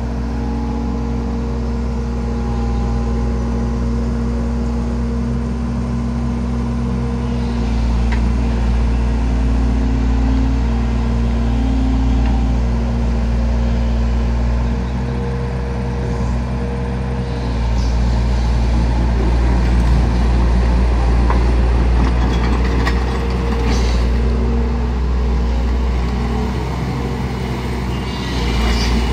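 Kobelco crawler excavator's diesel engine running steadily, growing louder at times as the hydraulics work the boom, arm and bucket and swing the upper structure.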